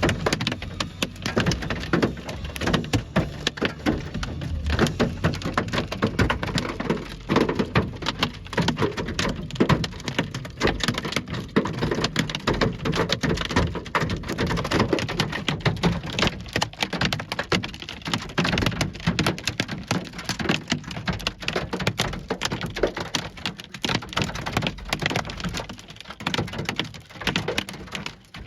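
Hailstones pelting down in a dense, continuous clatter of sharp, irregular hits.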